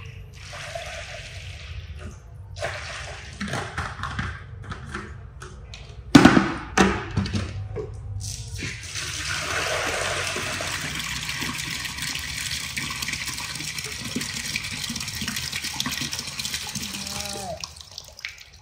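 Water running from a tap, first in short spurts and then in a steady rush from about nine seconds in, filling a basin with warm water for a foot soak. There is a loud knock about six seconds in.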